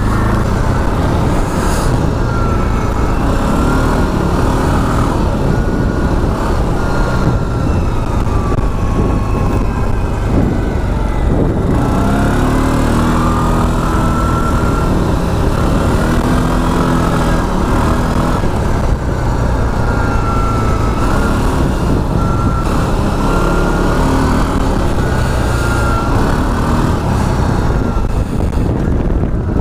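625 cc CFMOTO ATV engine running as the quad rides through snow, its pitch rising and falling with the throttle, with a higher whine that glides up and down over the engine note.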